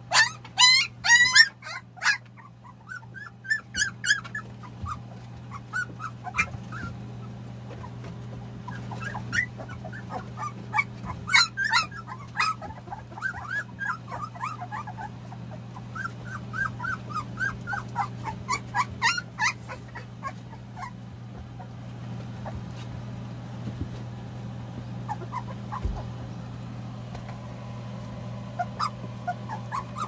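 Young Jindo-mix puppies whimpering and squealing in high, squeaky bursts as they push in under their mother to nurse, busiest in the first two seconds and again about a third and two-thirds of the way through. A steady low hum runs underneath.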